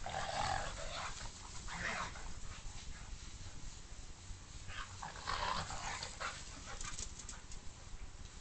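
Two dogs vocalizing as they play rough, in short irregular bursts: the strongest come in the first second and again around five to six seconds in, with a smaller one near two seconds.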